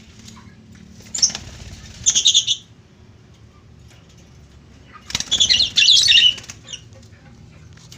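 Lovebirds giving two bursts of shrill, rapid chattering calls, one about a second in and another about five seconds in, each lasting a second or so.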